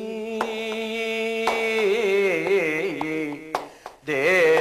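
Kathakali padam singing: a male voice holds long, ornamented notes while sharp percussion strikes keep time. The voice breaks off briefly about three and a half seconds in and comes back louder.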